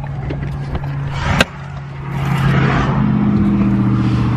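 Car sound at the roadside: a steady low engine hum, one sharp click about a third of the way in, then a louder vehicle hum with road noise from about halfway.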